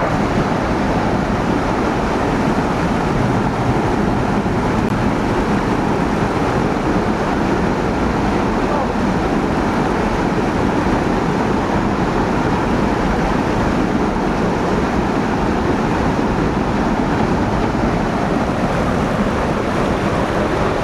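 Steady rush of a creek's flowing water, a loud even roar with no change in level.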